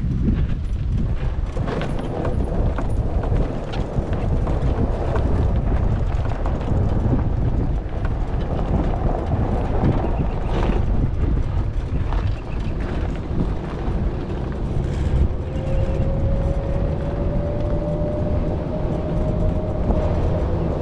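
Wind buffeting the microphone over the steady rumble of a slow-moving vehicle on pavement, with a few brief knocks. Near the end a thin whine comes in and rises slightly in pitch.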